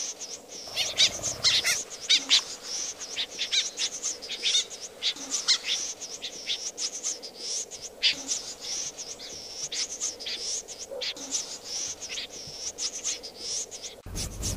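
Snipe calling: a quick, uneven run of short, high chirping notes, some bunched in fast clusters, loudest about one to two seconds in.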